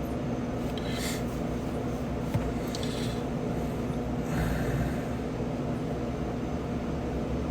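Steady low hum inside a vehicle, with a few faint breathy hisses.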